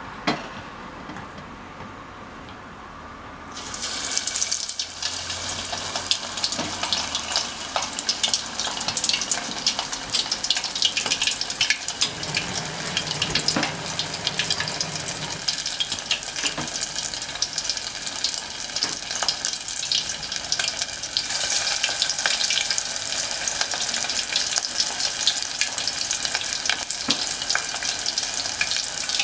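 Bone-in rib meat deep-frying in hot oil: a dense crackling sizzle that starts suddenly about three and a half seconds in and then carries on steadily.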